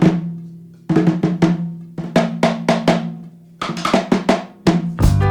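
Drum intro of a music track: groups of sharp drum hits with a ringing low pitch under them, then the full band with guitar comes in near the end.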